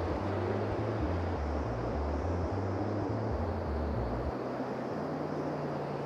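A car driving, with steady road noise and low bass notes shifting in pitch underneath.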